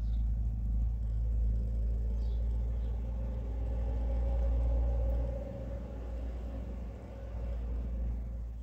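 Domestic cat purring close to the microphone, a low, steady rumble, while her kitten tries to suckle. The purr eases off a little about five and a half seconds in.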